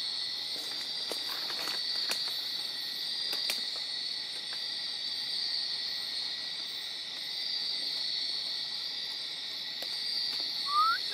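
Night-time tropical rainforest insect chorus: a steady, high-pitched shrill of many insects, with a few faint clicks and one short rising chirp near the end.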